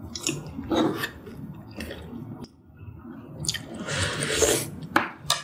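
Close-up mouth sounds of eating: wet chewing, then a longer slurp of spicy soup broth from a spoon about three and a half seconds in.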